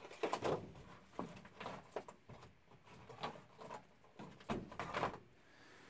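Faint handling noises: scattered light taps, knocks and rustles of objects being moved about on a table.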